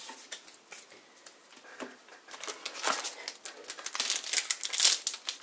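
Plastic wrapping and trading cards being handled: light clicks and crinkles that grow into denser crinkling of a foil booster pack wrapper near the end.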